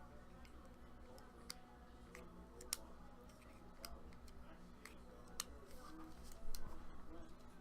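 Scattered light clicks and taps, about one every second or so with a short cluster near the end, over a steady low hum.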